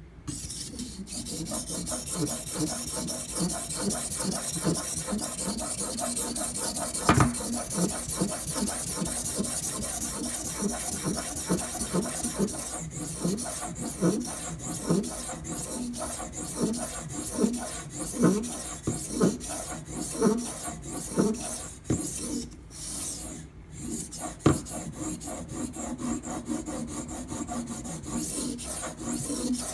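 Steel knife edge being ground on a sharpening stone in steady repeated strokes, a continuous rasping scrape, as the bevel is worked up to a burr. One sharp knock sounds about seven seconds in.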